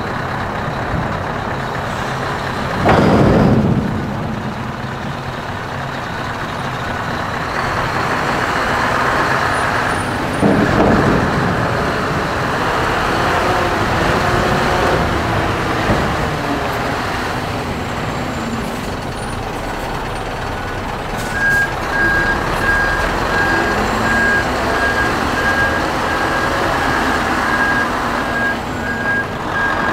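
Scania R620 hook-lift truck's V8 diesel running while a container is pulled aboard and the truck drives off. Two loud air-brake hisses come about three seconds in and about ten seconds in. A high reversing alarm beeps over the last third.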